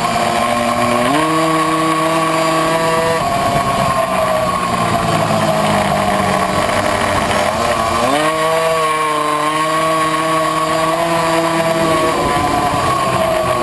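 Puch Maxi racing moped's tuned 70cc two-stroke engine running at high revs. Its pitch climbs sharply about a second in and again about eight seconds in as it accelerates out of corners, and holds high between.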